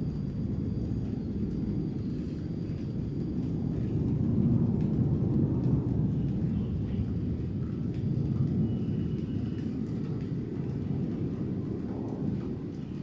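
Low rumble of a distant fighter jet's engines, swelling about four seconds in and again a little later, then easing off near the end.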